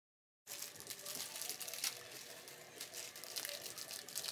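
Silence for about half a second, then the crinkling and tearing of a plastic spaghetti package being opened, with many small clicks and rustles.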